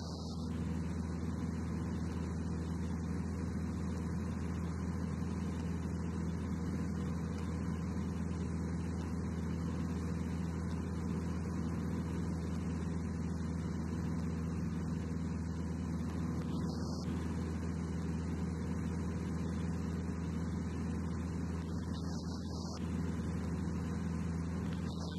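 Light aircraft's piston engine droning steadily in flight, heard in the cockpit, with a hiss above it.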